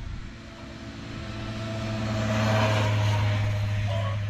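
A motor vehicle driving past, its low engine hum and road noise growing louder to a peak about two to three seconds in, then fading.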